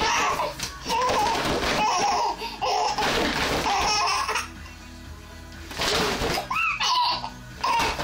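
A nine-month-old baby laughing in bursts, with high squeals a little past the middle, while a plastic floor mat is shaken, making a rattling, rustling noise. The noise drops away briefly just past the halfway point.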